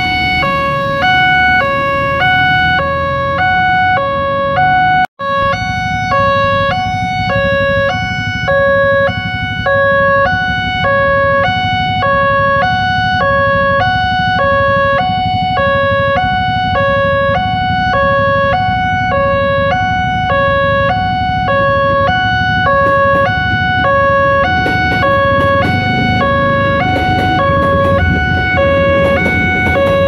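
Railway level-crossing warning alarm sounding its electronic two-tone chime, alternating high and low about every half second, with a brief dropout about five seconds in. In the last several seconds the low rumble of an electric commuter train passing through the crossing rises under it.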